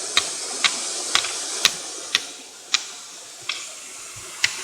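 A lighter flicked over and over without catching: sharp clicks about twice a second, coming more slowly after about two seconds. A steady hiss of the falling water lies beneath.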